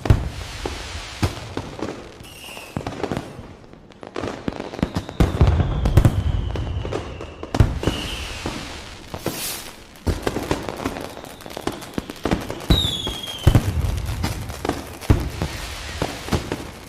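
Fireworks going off: dense crackling bangs and deeper booms in waves, with a long falling whistle a few seconds in and a shorter one later.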